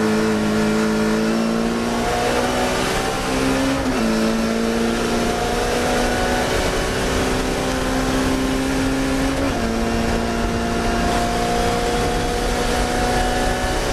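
Classic Mini race car's four-cylinder A-series engine running hard under load, its pitch climbing steadily and dropping sharply at upshifts about four seconds in and again near ten seconds.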